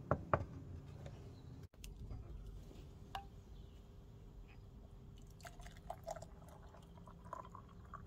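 Syrup poured from a stainless steel saucepan into a small glass jar, with small splashes and clinks in the second half. Two sharp knocks near the start.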